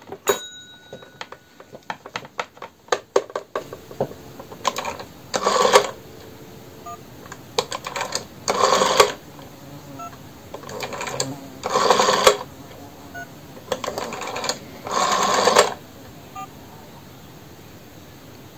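Rotary phone dial clicking as it is turned and released, with a short DTMF tone after each dialled digit from an Arduino pulse-to-tone converter. There are four tones, a few seconds apart, for the digits 1, 2, 3, 4.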